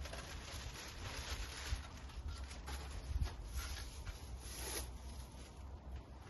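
Rustling and rubbing of packaging as strimmer parts are handled and lifted out of the box, in uneven stretches.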